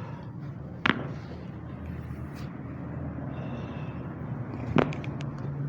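Two sharp cracks about four seconds apart from spinal joints popping under chiropractic adjustment thrusts, over a steady low hum.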